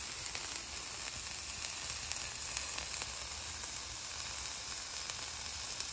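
Diced green bell peppers, onions and sliced mushrooms sizzling steadily on a hot flat-top griddle, cooked briefly to take the rawness off so they steam rather than caramelize.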